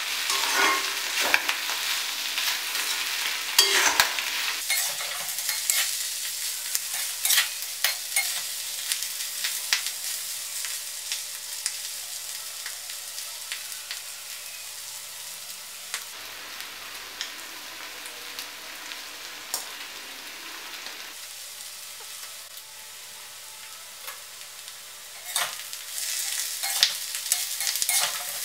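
Shelled clam meat frying in oil in a cast-iron kadai, sizzling steadily as it is roasted until crisp. A metal spatula scrapes and clatters against the pan while stirring, busiest in the first several seconds and again near the end, with a quieter stretch of sizzle alone in between.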